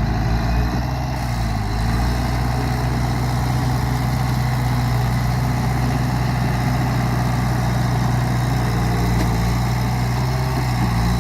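Bulldozer's diesel engine running steadily, with a slight shift in its note about a second in.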